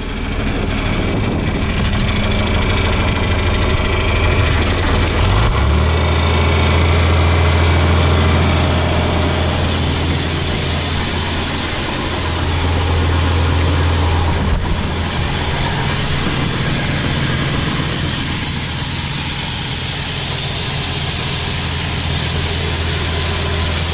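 Farm machinery engine running steadily; about five and a half seconds in it speeds up to a higher, louder hum and holds there.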